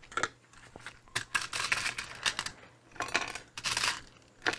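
Small screws and parts clicking and rattling as they are sorted through by hand, in uneven runs of short clicks and rustles, with a sharper knock near the end.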